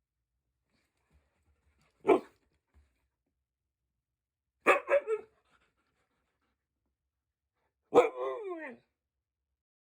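A dog barking: one bark about two seconds in, a quick run of two or three barks around the five-second mark, and one longer bark that falls in pitch near the end.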